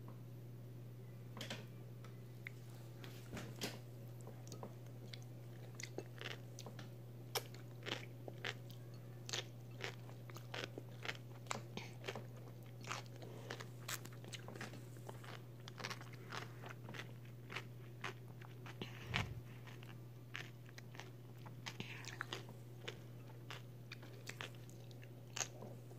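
Close-up crunching and chewing of raw cucumber strips dressed in sauce: short crisp crunches, irregular, about one or two a second, over a steady low hum.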